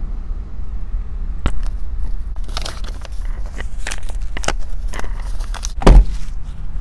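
Close-miked eating sounds: lip smacking, finger licking and a paper napkin rustling against the mouth, as scattered sharp clicks over a steady low hum. A loud thump about six seconds in.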